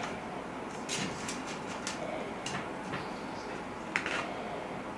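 Scattered light clicks and knocks from things being handled, about half a dozen, the sharpest one about four seconds in, over a steady background hiss.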